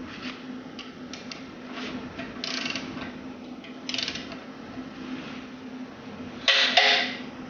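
Torque wrench ratcheting as it tightens an ARP cylinder-head bolt to torque: scattered clicks and short scrapes, with the loudest one near the end. A steady low hum runs underneath.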